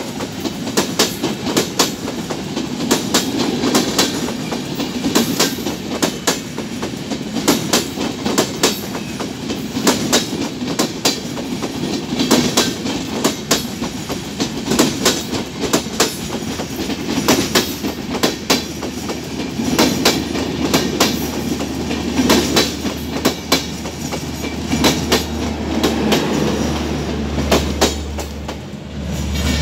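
Sundarban Express passenger coaches rolling past at close range as the train pulls away: the wheels clatter over the rail joints in a quick, irregular clickety-clack over a steady rumble. Near the end a low steady hum joins in as the power car, with its diesel generator, goes by.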